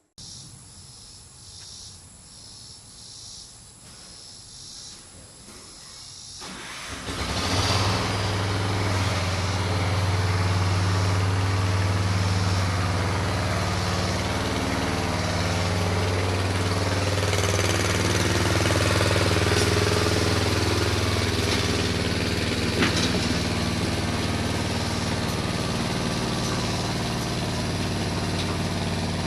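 Allis Chalmers 716 garden tractor engine starting up about seven seconds in after a quieter stretch, then running steadily.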